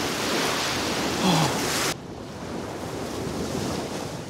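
Waves breaking and washing onto a sandy shore, with wind buffeting the microphone. About two seconds in the sound cuts abruptly to a quieter, steady wash of surf.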